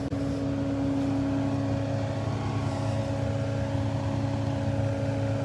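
Mulching machine's engine running steadily at one even pitch.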